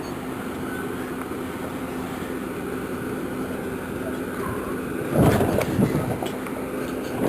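A vehicle driving slowly over farm ground, its engine running with a steady hum and rumble. A louder clatter about five seconds in.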